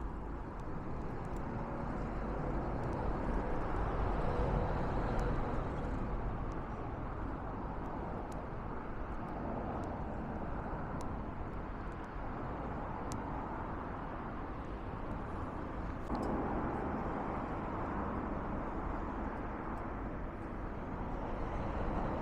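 Straw burning in a Moki M100 smokeless carbonizer: a steady rushing noise with scattered sharp crackles, over a low rumble.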